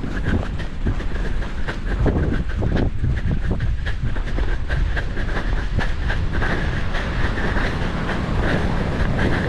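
Wind rumbling on a body-worn camera's microphone over the quick, rhythmic footfalls of a person running on sand. The massed bleating of a Cape fur seal colony grows louder over the second half as the runner closes in on the seals.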